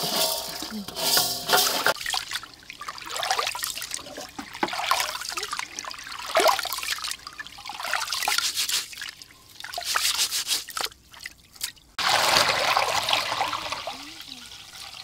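Rice being washed by hand in a pot of water: splashing and sloshing as the grains are rubbed, then, about twelve seconds in, a steady pour as the cloudy rinse water is tipped off.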